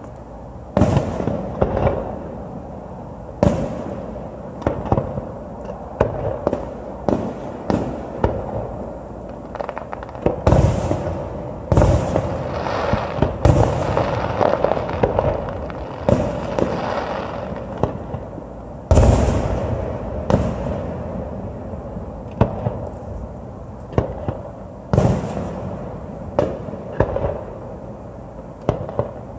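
Aerial fireworks shells bursting one after another in sharp booms a few seconds apart, with smaller pops and crackling between them.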